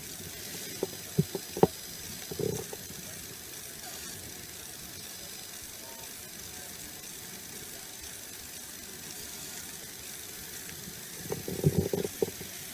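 Steady background hiss, with a few sharp clicks in the first couple of seconds and brief muffled voices near the end.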